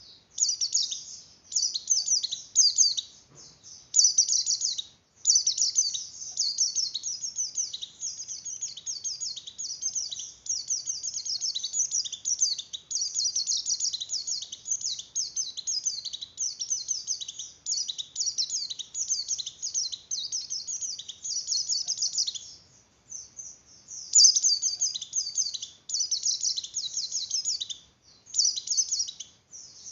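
White-eye (pleci) in breeding condition singing a rapid, high twittering song in long unbroken runs, pausing briefly a few times.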